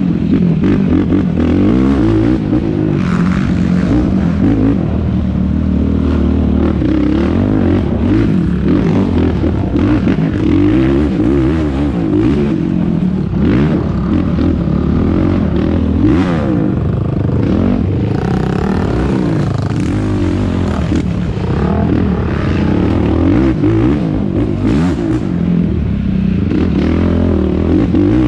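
Yamaha YFZ450R quad's single-cylinder four-stroke engine running hard under race throttle, its pitch rising and falling continually as it revs and shifts. Sharp knocks and clatter come through now and then.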